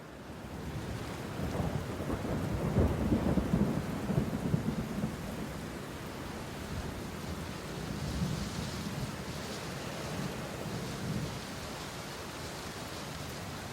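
Deep rolling rumble like distant thunder over a steady hiss. It swells about a second and a half in, is loudest for a few seconds, then swells again more weakly after about eight seconds.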